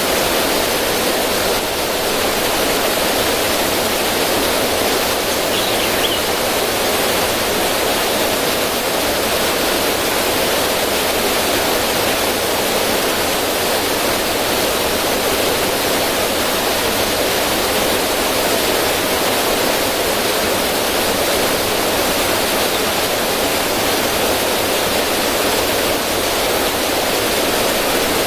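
River water rushing over rocks in a small cascade, a steady, even splashing and rushing with no change.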